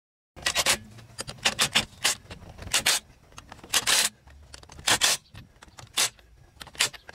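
Cordless impact wrench spinning lug nuts onto the wheel studs in short bursts, with the socket and nuts clicking and scraping in between.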